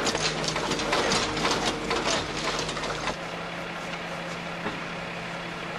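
Crane truck running, with rapid irregular mechanical clattering and rattling over a steady engine hum. The clattering stops about three seconds in, leaving only the steady hum.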